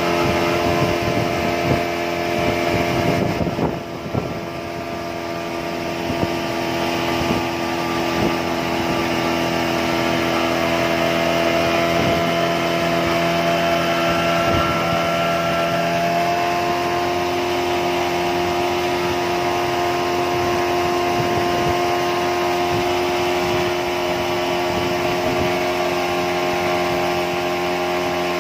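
Small boat's outboard motor running steadily under way, with a slight shift in pitch about halfway through.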